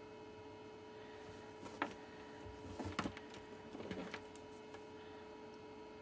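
Small clicks and rustles of a thin nickel strip and battery cells being handled and lined up on a workbench: one sharp click, then two short clusters a second or so apart. A faint steady electrical hum runs underneath.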